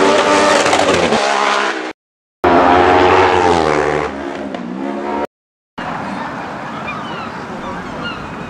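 Racing motorcycles passing at full speed, each engine note high and then dropping in pitch as it goes by. The sound cuts out abruptly twice between passes, and from about six seconds in only a quieter steady background hiss remains.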